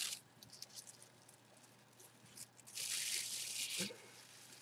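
Packing tissue paper rustling and crinkling as it is pulled out of a small cardboard box: a short rustle at the start, faint light ticks, then about a second of louder crinkling a little before the end, closing with a soft knock.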